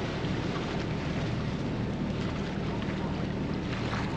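Wind rushing steadily over the microphone, with the low, steady hum of the Nordhavn 62 yacht's engine as it moves ahead slowly.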